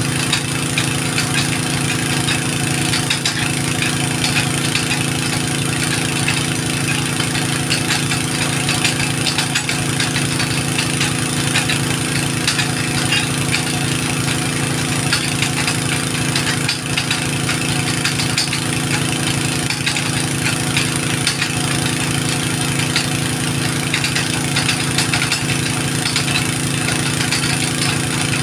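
An engine running steadily at constant speed, its pitch unchanging throughout.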